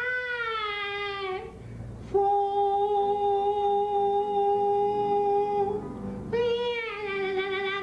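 A man singing long held notes into a microphone without words: one note tails off about a second and a half in, then after a short breath a long steady note is held for about three and a half seconds, and another begins near the end.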